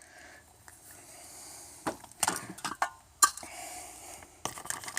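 Scattered metallic clinks and knocks of a wheel and loose lug nuts being handled during wheel removal, in small clusters about two seconds in, a little after three seconds and near the end.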